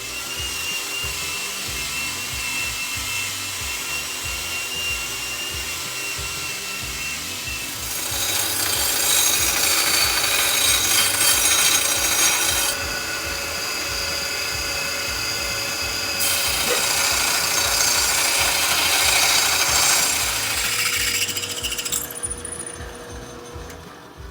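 Electric power tool grinding on steel bar stock, running continuously with a steady whine. It grows louder in two stretches where it bites harder into the metal.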